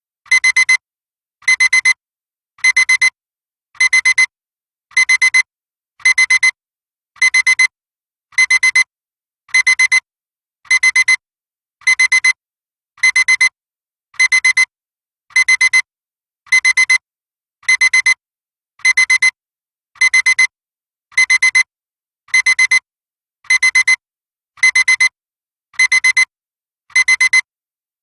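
Digital alarm clock beeping: a high-pitched electronic beep sounded in short rapid clusters, repeating steadily about once a second.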